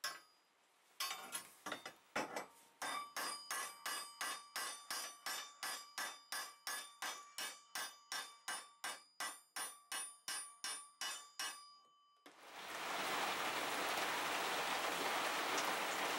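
Hammer blows on steel at a steady pace, about two and a half strikes a second, each leaving a metallic ring, as the potato-fork cultivator head is driven onto its wooden handle. Near the end the strikes stop and a steady hiss takes over.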